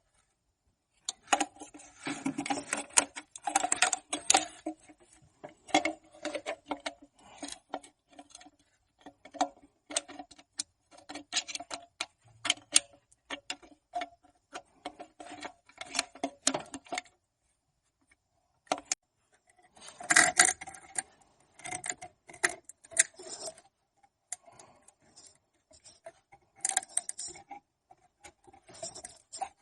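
Hand tools clicking and clinking on metal engine parts in irregular bursts of sharp clicks, each with a short ring.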